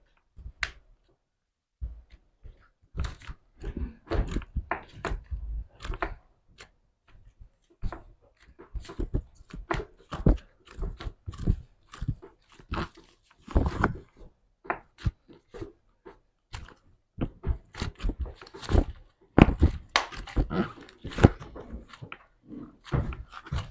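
Slime being handled, squished and poked by hand, giving a quick, irregular run of sticky clicks, pops and soft thuds.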